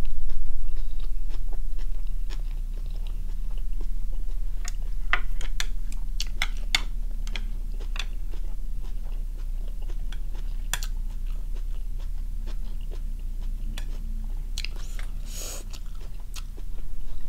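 Close-up chewing of a mouthful of lettuce-wrapped squid, with wet clicks and crunchy smacks scattered through. A steady low hum runs underneath.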